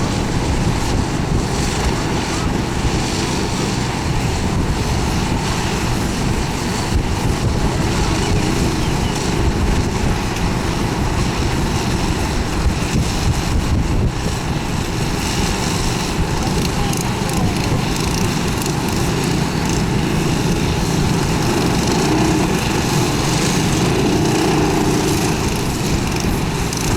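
Small single-cylinder Predator 350 kart engines running steadily on the grid, with a faint pitched engine note showing more clearly near the end.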